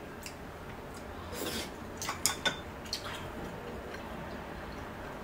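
A scatter of light clicks and clinks of chopsticks, a shot glass and a soju bottle handled on a table, one clink ringing briefly about two and a half seconds in.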